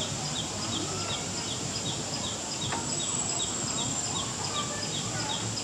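Outdoor wildlife ambience among trees: a steady high-pitched insect drone, with a short chirp repeated evenly about three times a second.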